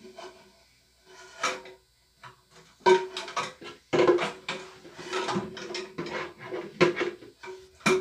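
Old plastic toilet fill valve (ballcock) knocking and clattering against the porcelain tank as it is worked loose and lifted out. A few scattered knocks at first, then a busy run of clatters from about three seconds in.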